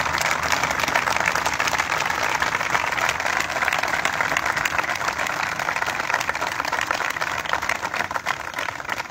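A crowd applauding steadily, dying down near the end.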